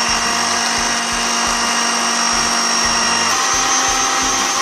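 Electric mixer-grinder blending watermelon chunks and mint leaves into juice, its motor running loud and steady with a high whine. About three seconds in, its pitch steps up slightly as the chunks turn to pulp.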